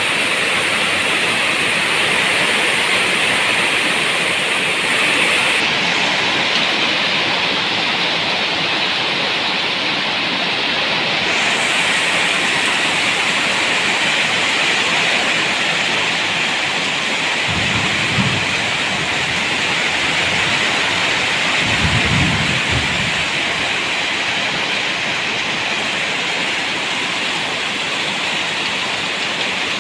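Steady rain, with two short, low rumbles of thunder a few seconds apart about two-thirds of the way through.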